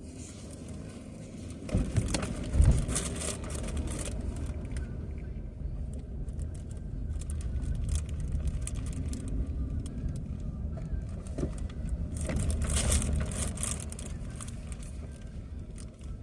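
Car running, heard from inside the cabin: a steady low engine and road rumble, with two louder stretches of rustling noise about two seconds and twelve seconds in.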